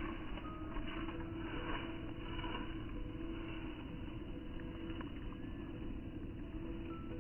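Soft background music with held notes changing pitch now and then, over a steady low noise.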